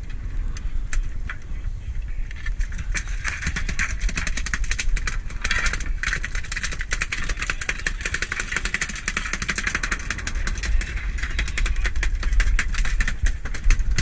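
A boat's engine running steadily with a low rumble, joined from about two and a half seconds in by a dense, rapid, irregular clicking.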